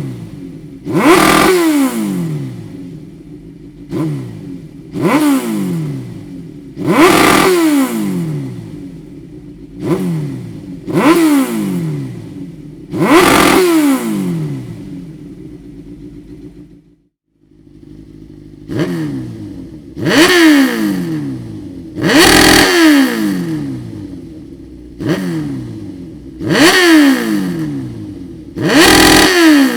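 Suzuki GSX-R 1000 K3's inline-four sport-bike engine breathing through a Dominator slip-on muffler, blipped repeatedly to a sharp rev and falling back to idle each time, about every two seconds. The sound breaks off briefly about halfway through, then the revving resumes.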